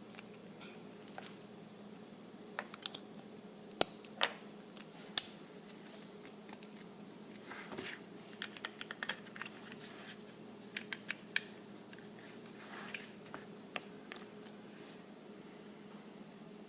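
Irregular small clicks and taps of Glock 19 pistol parts being handled and set down during disassembly, with a few sharper knocks about four and five seconds in.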